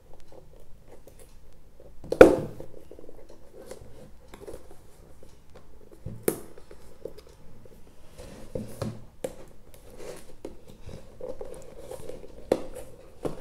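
Cardboard earphone box being handled and pulled open by hand: scattered rustling and scraping of card, with a sharp knock about two seconds in and another at about six seconds.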